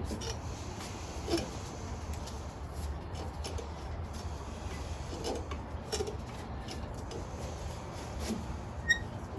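Valve spring compressor being wound off a valve spring on a 5.7 Hemi cylinder head, heard as faint metal clicks and handling sounds over a low steady hum. A short high metallic ping comes near the end.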